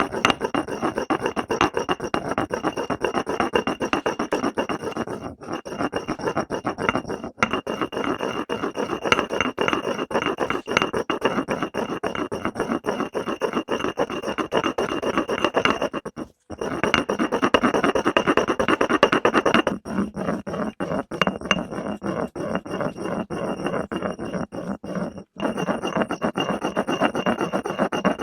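Slime made from hair gel being worked by hand: a dense, continuous run of small sticky crackles and squishes, broken off by two short gaps. A faint steady high tone runs under it.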